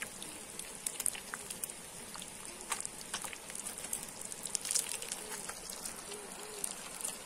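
Lambari and tilapia frying in oil in a pan over a wood fire: a steady sizzle with scattered pops and crackles.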